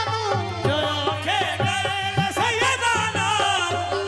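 Live qawwali: a lead voice singing ornamented, wavering lines over a held harmonium note, with drum strokes keeping the rhythm.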